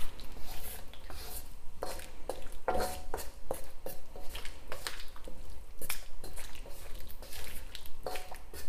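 Wooden spatula stirring and turning chicken and potato pieces in sticky soy sauce in a wok: irregular scrapes and knocks against the pan with wet squishing of the food, over a steady low rumble.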